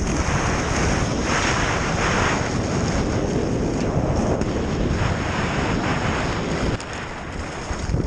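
Wind buffeting a helmet-mounted action camera's microphone at skiing speed, mixed with the hiss of skis sliding and turning on packed snow. It comes in slow swells and eases a little near the end.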